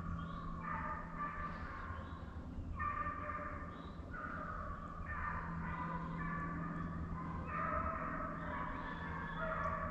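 A pack of hounds baying while running a deer, several dogs calling in long, overlapping bawls about once a second.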